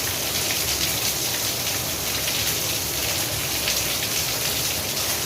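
Steady rain falling, with many fine drops pattering on a surface.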